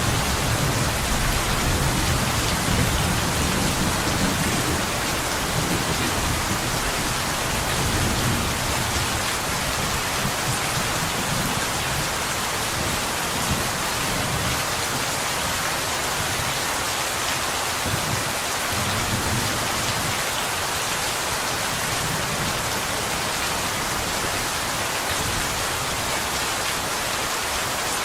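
Steady rain falling on window glass, an even hiss of many drops. A low rumble of distant thunder runs under it in the first half and dies away.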